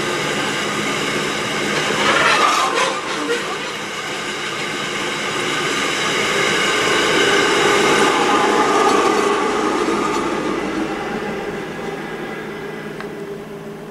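Loaded iron-ore wagons of a long freight train rolling over a level crossing, with steady wheel-on-rail noise heard from inside a car and a brief louder burst about two seconds in. The noise fades over the last few seconds as the train's tail and its rear helper locomotive pass.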